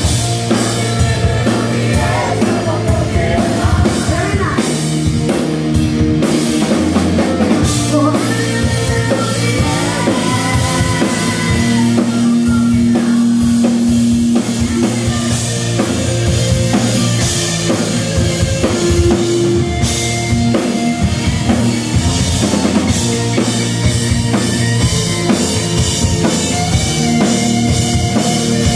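Live rock band playing: a female lead vocal over distorted electric guitars, bass and a pounding drum kit.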